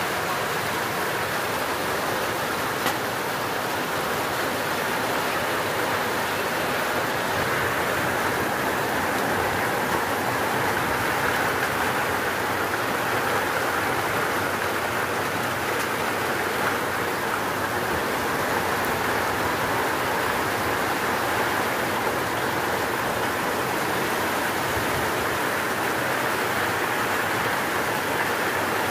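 Steady rain falling, an even rushing hiss with no let-up.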